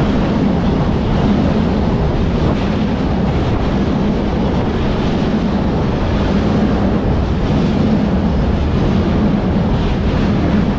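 Train running at the stop: a loud, steady rumble with a low hum, unbroken throughout.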